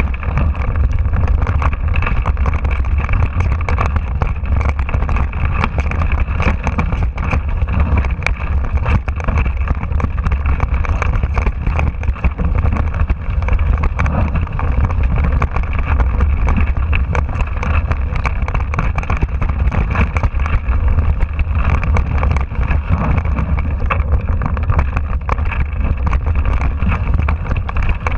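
Mountain bike riding fast down a rough dirt trail, heard from a handlebar-mounted camera: a steady low rumble of wind on the microphone with a constant rattle of small knocks from the bike and tyres over the ground.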